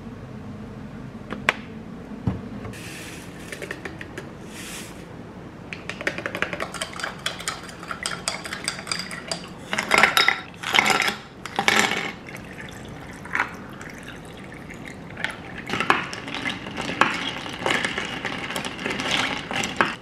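A squeeze bottle of teriyaki sauce spurting as it is pressed, then water poured from a pitcher into a drinking glass, splashing loudest partway through, with clinks of glass and cutlery on a countertop.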